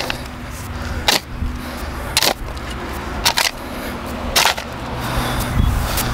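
Steel shovel striking and scraping through loose soil in sharp strokes about once a second, over a low, steady engine hum.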